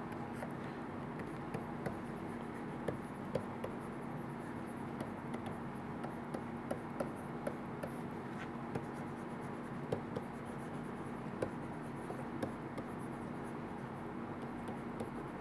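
Faint irregular taps and scratches of a stylus writing on a tablet screen, over a steady low hum and hiss.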